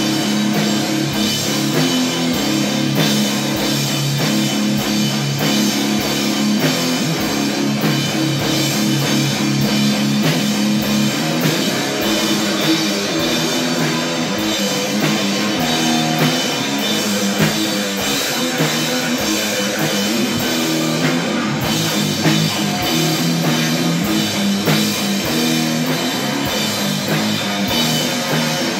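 Live drum kit and electric guitar jamming together in a rock style: a steady beat of kick drum, snare and cymbals under strummed electric guitar chords.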